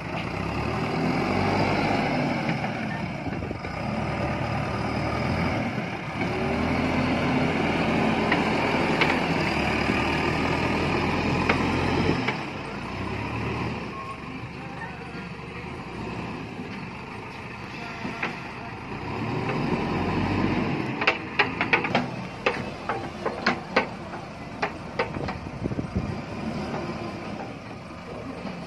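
JCB 3DX backhoe loader's diesel engine running under load as it works earth with its front bucket, its pitch rising and falling with the throttle, loudest in the first half. Over the last several seconds a run of sharp knocks and clatter.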